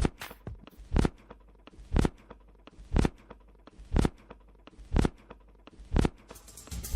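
Background music in a sparse stretch: a single percussive hit about once a second, with little between the hits, until a fuller drum beat comes in near the end.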